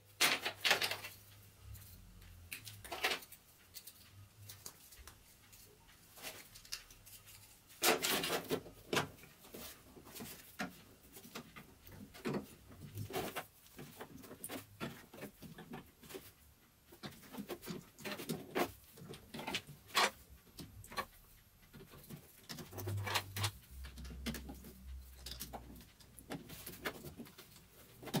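Sony high-current lithium-ion cells being handled and pushed into plastic cell holders: scattered clicks and taps as the cells knock together, set down on the wooden bench and snap into the holders.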